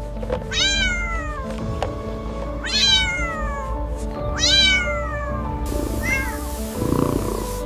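A cat meowing three times, each call rising sharply and then falling away, followed by a fainter fourth meow and a low rough rumble near the end, over steady background music.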